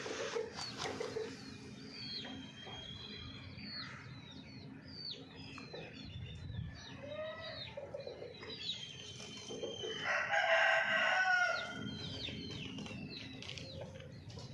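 Chickens: a rooster crows once, about ten seconds in, the loudest sound. Under it are low hen clucks near the start and a steady run of short, high, falling chirps.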